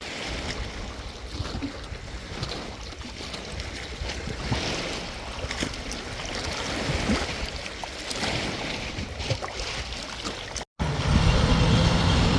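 Wind buffeting the microphone over splashing water, with a low rumble and small scattered clicks. After a cut near the end, a louder, steady engine hum takes over.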